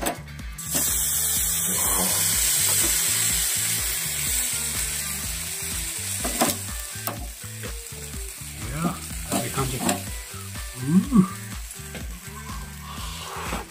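Sauce-basted okra pods sizzling on the wire mesh of a charcoal-fired shichirin grill: the hiss starts suddenly about a second in as the sauce hits the heat, then slowly dies down.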